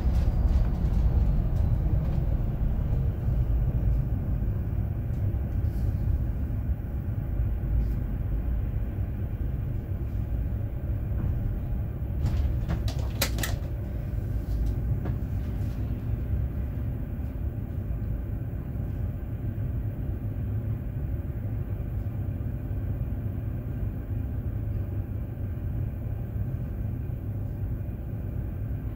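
City bus driving: a steady low rumble of engine and road noise, with a short cluster of sharp clicks or rattles about halfway through.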